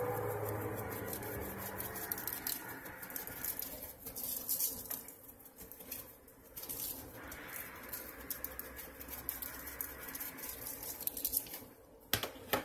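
A seasoning shaker shaken over raw flounder fillets: light rattling and granules pattering onto the fish and paper, in several spurts.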